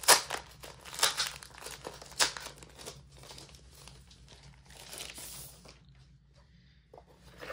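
Clear plastic wrapping crinkling as it is pulled off a glossy photo print, with three sharp crackles about a second apart, then a softer rustle that dies away.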